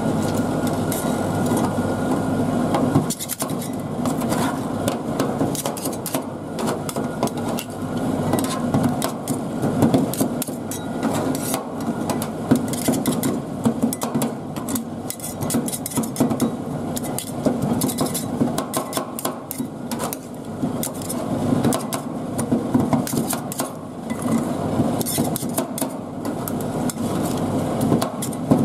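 Metal spatulas chopping and scraping tomato against a flat aluminium cold pan: rapid, irregular metallic clacks and scrapes, starting a few seconds in and going on steadily.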